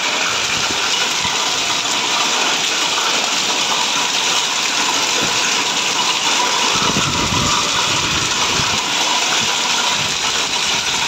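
Heavy rain with hailstones pelting down, a steady dense hiss of rain and hail hitting the ground and water. A low rumble joins in for a couple of seconds about seven seconds in.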